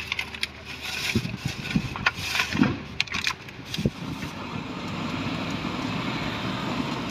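Thin plastic bag rustling and crinkling in irregular bursts, with several sharp clicks, as food is put into it. After about four seconds this gives way to a steady low rumble.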